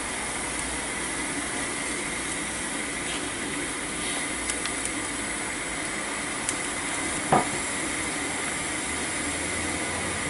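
Steady hiss of steam from the live steam blower of a coal-fired 5-inch gauge British Rail Standard Class 4 model locomotive, turned down low while the boiler raises pressure. A single sharp click comes a little past seven seconds in, with a few fainter ticks before it.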